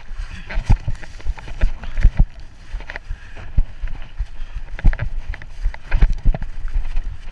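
Mountain bike ridden fast down a rough dirt trail: frequent irregular knocks and rattles as it hits bumps, over a steady rush of tyre and wind noise.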